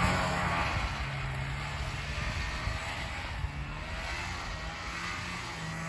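Snowmobile engine running as it tows a mattress sled across the snow, growing fainter as it pulls away.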